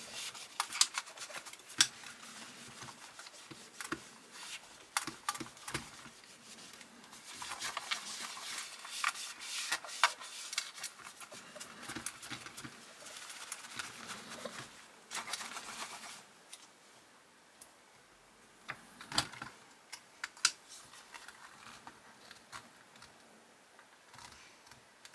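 A cloth rubbing over the painted body of a die-cast 1:18 model car as it is polished by hand, in soft stretches, with scattered small clicks and taps as the model is turned and set down on the work mat. The rubbing and clicking thin out in the last third.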